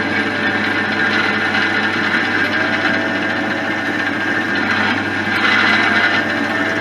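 Pillar drill running with its twist drill cutting a clearance hole through a brass workpiece: a steady motor hum under continuous cutting noise, a little louder about five and a half seconds in.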